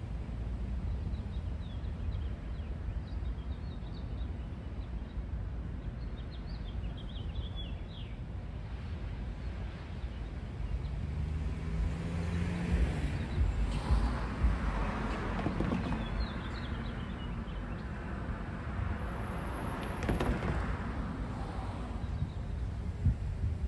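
Street ambience: a steady low rumble with birds chirping now and then, and a vehicle passing by through the middle.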